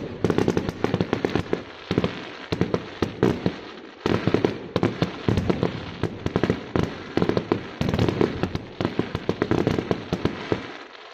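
Fireworks going off in rapid, dense strings of sharp bangs and crackles, several a second, with brief lulls.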